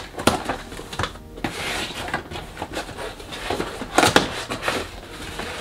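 A cardboard box being opened by hand: packing tape pulled and torn, cardboard flaps rustling and knocking as they are pulled open. The sharpest knocks come right at the start and again about four seconds in.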